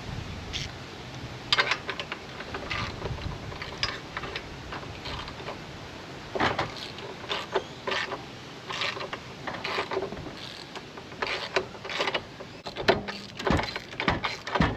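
Ratchet and spark plug socket clicking and scraping in short, irregular strokes while working a stubborn spark plug out of the mower's engine.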